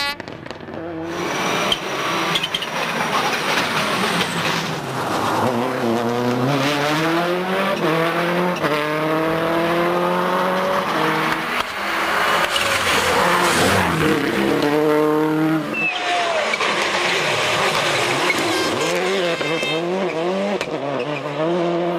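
Subaru Impreza WRC rally car's turbocharged flat-four engine at full throttle, its revs climbing and dropping back again and again through quick gear changes.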